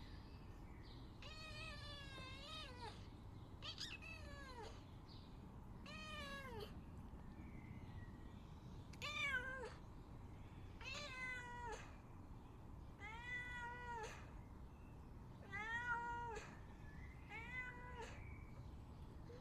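Domestic cat meowing repeatedly, about eight drawn-out meows spaced a second or two apart, each rising and then falling in pitch.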